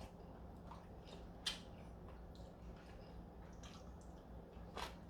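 Quiet eating sounds from a meal of beef short-rib soup: scattered soft clicks and wet mouth sounds, with one sharper click about one and a half seconds in and another near the end, over a faint steady hum.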